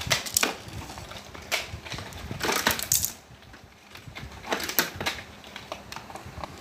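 Hard plastic toys knocking and clattering: toy elephant figures being handled against a plastic toy truck, in irregular clicks and knocks, with a longer rattle about two and a half seconds in.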